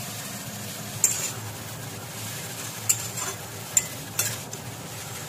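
Chopped banana flower and potatoes sizzling in hot oil in a metal kadai, stirred with a metal spatula that clacks sharply against the pan four times.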